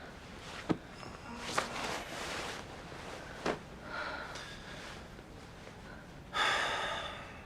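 Soft breathing and small movement sounds, with a few sharp light clicks. Near the end comes a louder breathy gasp or sigh.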